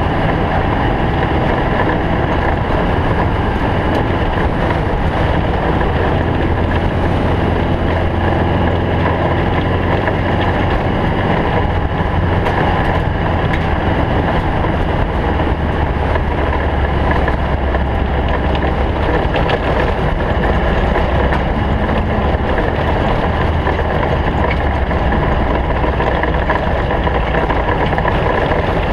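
Stock Volkswagen Beetle-based off-road race car's air-cooled flat-four engine running continuously and loudly at speed, its low drone shifting slightly in pitch.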